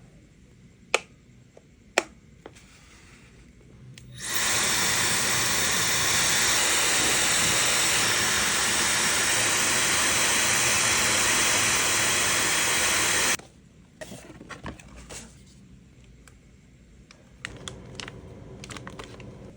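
Two sharp clicks, then a Yoole high-speed hair dryer starts about four seconds in and blows with a loud, steady rush of air for about nine seconds before cutting off abruptly. Light clicks and handling noises follow.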